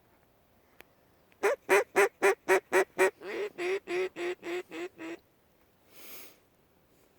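Mallard-style quacking, most likely a hunter's duck call: a run of about fourteen quacks, the first seven loud and clipped, the rest softer and drawn out, trailing off like a hen mallard's greeting call. A short breathy hiss follows about a second later.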